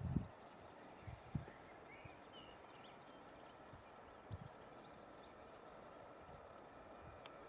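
Faint outdoor ambience: scattered small bird chirps over a steady low hiss, with a few soft low thumps, about a second in and again past four seconds.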